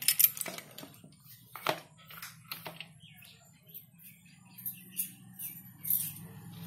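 Handling noise: irregular clicks, taps and rustles as the plastic housing and mount of a Sricam SP007 outdoor camera are turned over in the hands among cardboard and plastic packaging, over a steady low hum.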